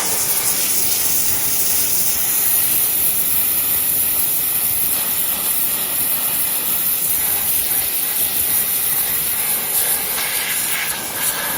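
A 2000 PSI pressure washer's jet spraying steadily against stone, a loud even hiss that stops suddenly at the very end.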